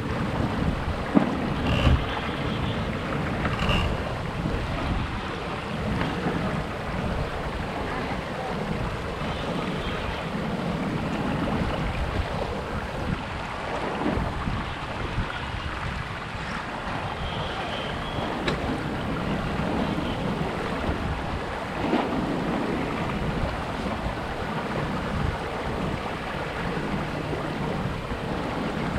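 Wind buffeting the microphone of a GoPro mounted on a sailing dinghy's tiller, over water rushing past the hull of a Flying Scot under sail, with a few short knocks about a second in.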